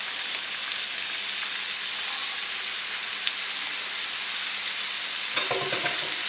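Chunks of wild boar searing in hot lard and soffritto in a frying pan, sizzling steadily. There is a single light tick about three seconds in, and a brief clatter near the end.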